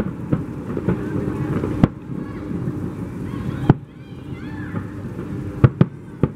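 Aerial fireworks bursting in a series of sharp bangs, about eight of them spread irregularly. The loudest come near two seconds in, near four seconds, and as a close pair near six seconds.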